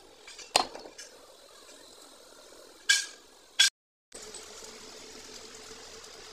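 Steel excavator track-roller parts knocking together as they are handled: a sharp metal knock about half a second in, then two ringing metal-on-metal clinks around three seconds. After a brief cut, a steady low hum.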